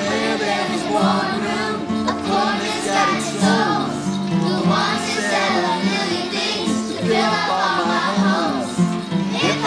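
A man and a class of fourth-grade children singing a song together over steady instrumental accompaniment.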